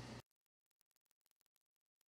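Near silence: a faint room hum for a moment, then the sound cuts out to complete silence.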